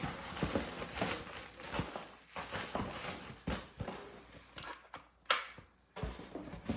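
Irregular handling noises: small knocks, clicks and rustles of items and packaging being moved about, with one sharper click about five seconds in.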